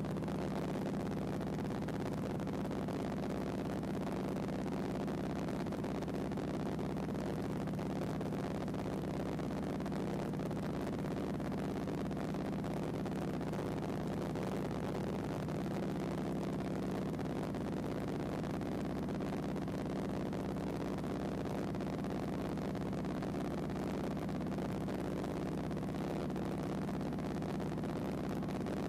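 High-wing bush plane's engine and propeller droning steadily in flight, heard from inside the cabin.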